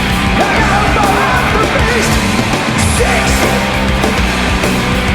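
Heavy metal music playing steadily, with no speech over it.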